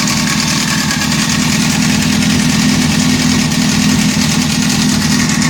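Honda CBR600F4's inline-four engine running steadily at idle, with a mechanical noise from the engine that the owner takes for timing chain noise.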